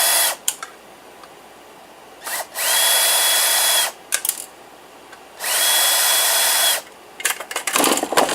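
Power drill-driver running in short bursts of a second or two, each spinning up to a steady whine, as screws are backed out of a desktop PC tower's case. A rattle of clicks near the end.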